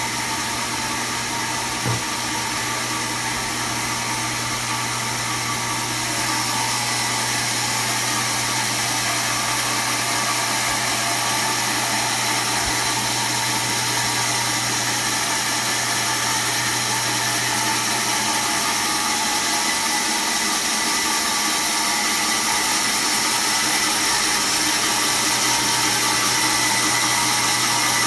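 Automatic band saw running steadily: a constant machine hum with several held tones over a hiss. A small click comes about two seconds in, and the sound gets slightly louder about six seconds in.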